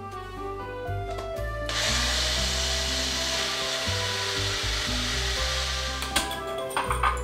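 A Wonderchef Nutriblend personal blender runs from about two seconds in to about six seconds in, grinding mint and coriander leaves into a green chutney, over steady background music. A few light clinks of the blender cup follow near the end.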